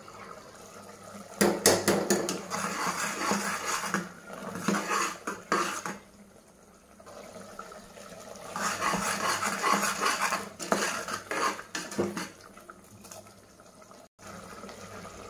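Steel ladle stirring a wet curry in an aluminium pressure cooker pot, clinking and scraping against the metal. It comes in two bouts of a few seconds each with a short pause between.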